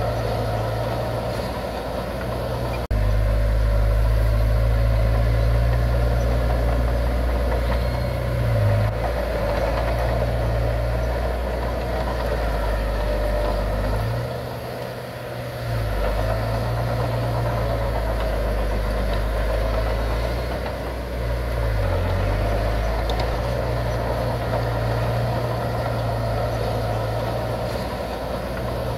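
Diesel engines of heavy earthmoving machinery running under load, a steady low drone. It gets louder about three seconds in, drops away for a moment around the middle, then picks up again.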